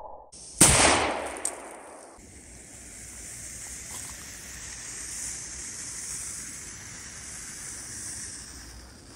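A single 12-gauge Saiga 12 shotgun shot about half a second in, the report echoing and dying away over about a second and a half. A steady faint high hiss follows.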